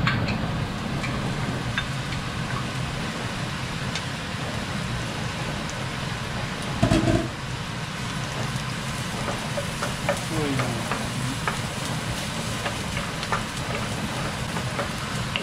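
Food sizzling steadily in hot oil in a pan, with scattered small clicks of a utensil and a brief louder clunk about seven seconds in.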